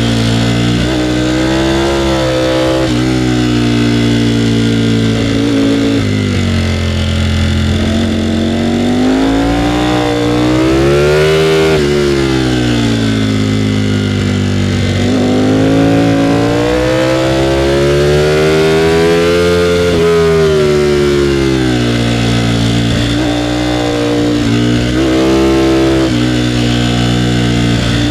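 Ducati Panigale V4R's V4 engine under way, its pitch rising and falling as the rider accelerates and backs off: a long climb in revs peaking about eleven seconds in, a drop, another long climb peaking about twenty seconds in, then a run of short rises and falls near the end.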